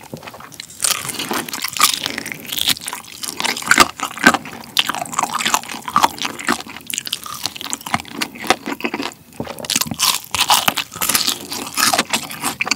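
Close-miked chewing of crispy batter-fried chicken: a dense, irregular crackle and crunch of the fried coating, with wet chewing of the meat.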